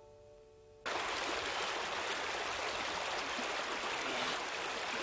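Steady rush of a waterfall, cutting in suddenly about a second in after the faint last moment of a held music chord.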